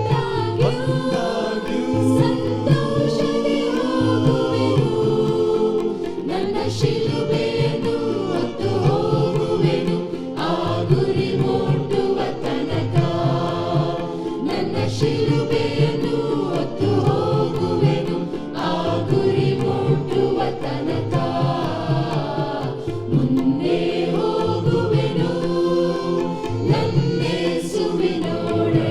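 Several voices singing a devotional song together, with instrumental backing and a steady beat.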